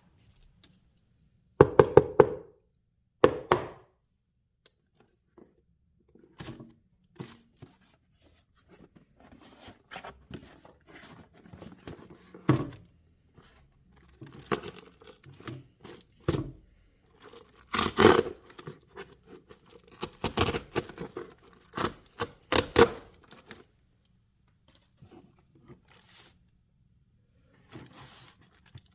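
Watch box and its packaging being handled and opened by hand: irregular bursts of tearing, rustling and scraping with light knocks of the box and lid, busiest in the second half.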